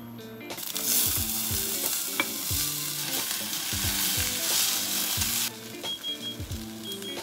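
Strips of potato sizzling in hot oil in a stainless steel frying pan as they are dropped in and stirred with a spatula; the sizzle starts about half a second in and cuts off suddenly about five and a half seconds in. Background music with a steady beat plays underneath.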